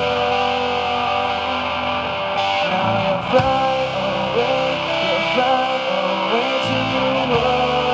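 Live rock band playing, led by electric guitar with sustained notes that bend up and down over the rhythm section.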